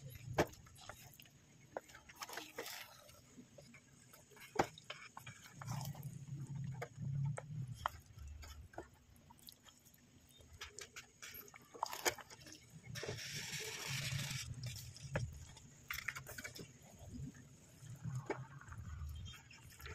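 Sauced spaghetti being stirred and tossed in a pan with a utensil: irregular clicks and knocks of the utensil against the pan, with soft low handling noise and a brief hiss about two-thirds of the way through.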